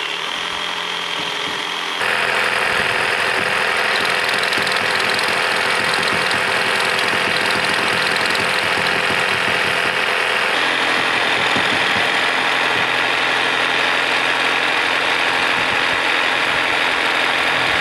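Cordless reciprocating saw cutting through iron window bars: a loud, steady buzzing saw noise that changes abruptly in tone about two seconds in and again about ten seconds in.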